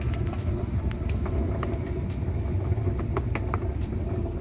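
Escalator running: a steady low rumble of the machinery and moving steps with a faint hum and a few light clicks.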